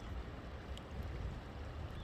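River water flowing: a steady rush of water with a strong low rumble underneath.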